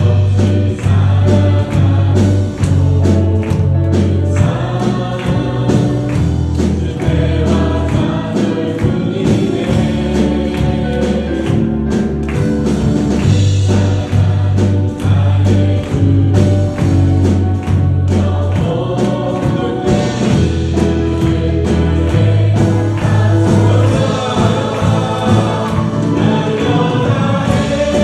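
A church praise team singing a worship song together with a band: several voices over a bass line that moves every second or two, and drums.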